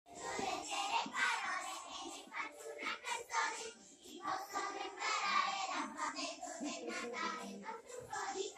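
A group of young children singing together, phrase after phrase, with a short break about four seconds in.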